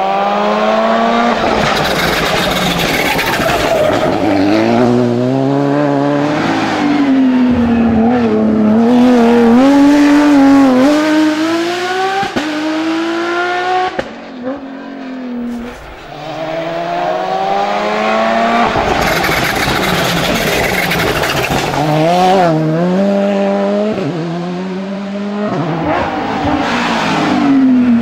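Rally cars driven flat out, engines climbing in pitch through the gears with short breaks at each upshift and falling away on lift-off for the bends, one of them a Porsche 911 GT3. The sound drops out briefly about halfway, where one run gives way to the next.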